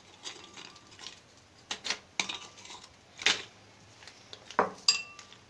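Glass bowl clinking and knocking as Oreo biscuits are picked out of it by hand and dropped into a plastic zip-lock bag: about half a dozen sharp clinks, the one near the end ringing briefly.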